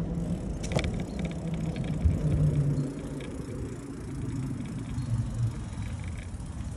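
Bicycle ride noise: tyres rolling on wet pavement and then onto a ribbed metal bridge deck, with wind rumble on the handlebar-mounted microphone and a steady low hum. A sharp click comes about a second in, and the sound drops a little after about three seconds.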